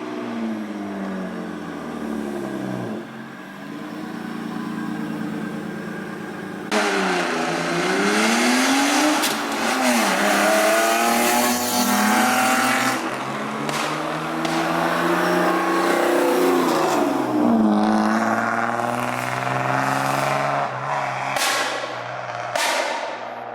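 Straight-piped BMW E36 325i's M50B25 2.5-litre straight-six revving up and falling back again and again, loud and raw, with a sudden jump in loudness about seven seconds in.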